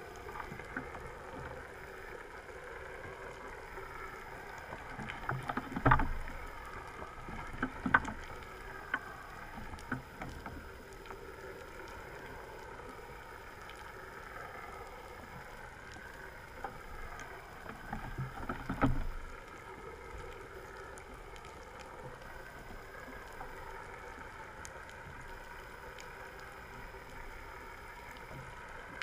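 Underwater ambience: a steady wash of noise with faint wavering tones. It is broken by louder bursts of crackling clicks about six seconds in, at eight and ten seconds, and again around nineteen seconds.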